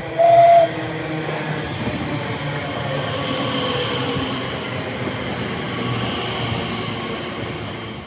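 A train horn gives one short, loud single-note toot of about half a second, followed by the steady rumble and rail noise of a train running past.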